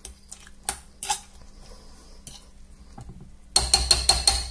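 Metal fork stirring beaten egg with mashed potato and cabbage in a glass bowl: a few light clicks, then near the end a quick run of about six ringing clinks of the fork against the glass.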